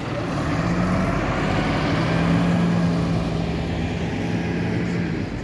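A motor vehicle's engine going by in city traffic: a steady low hum with road noise that swells to a peak about two seconds in, then eases off.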